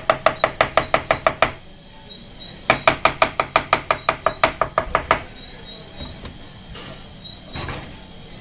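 Chef's knife rapidly slicing mushrooms on a plastic cutting board: quick, even chops at about six a second, in two runs with a short pause between them.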